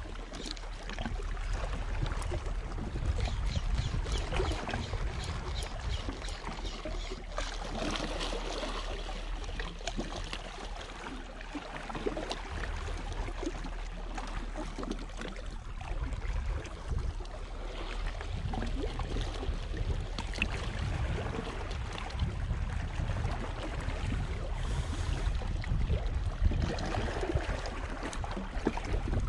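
Wind rumbling on an action camera's microphone, with small waves washing and gurgling against shoreline rocks.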